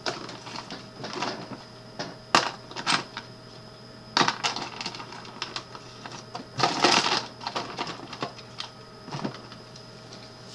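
Irregular clicks, knocks and rustles of small objects being handled, with the busiest cluster about seven seconds in, over a low steady hum.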